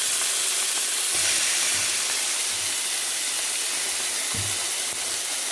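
Diced raw chicken breast sizzling steadily in hot oil in a frying pan, just after it has gone in.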